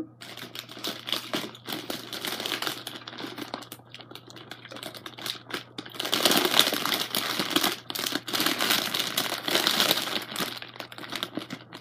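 Clear plastic bag of penny candy crinkling and rustling as a hand rummages through it, growing louder about halfway through.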